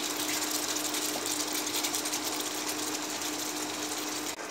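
Paneer tikka masala gravy boiling and sizzling in a non-stick pan, a dense run of fine crackles and pops, with a spatula stirring through it. A steady low hum runs underneath, and both cut off abruptly near the end.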